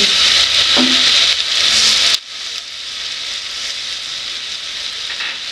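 Diced potatoes and onions sizzling in hot oil in an aluminium pot, stirred with a silicone spatula. About two seconds in, the sound drops sharply to a quieter, steady sizzle with no stirring.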